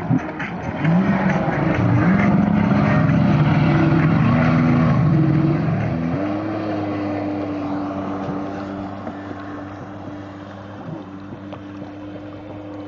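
Kawasaki jet ski engine revving up about a second in and running loud, then settling to a steady tone about six seconds in that gradually fades.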